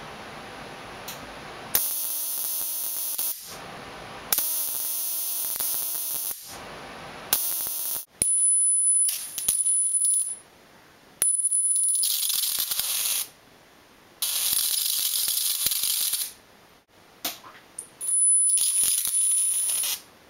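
High-voltage electric arc from an Arduino-driven flyback transformer, a loud hissing crackle switched on in bursts of one to two seconds, about seven times, with short silences between them. A thin high whine runs through the later bursts.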